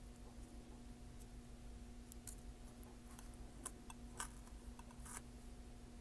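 Faint, scattered clicks and crinkles of steel tweezers handling small pieces of masking tape and pressing them onto a model locomotive's frame, over a steady faint hum.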